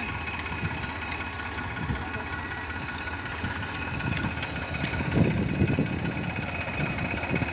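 Tractor engine idling steadily. It gets a little louder and more uneven in the last couple of seconds.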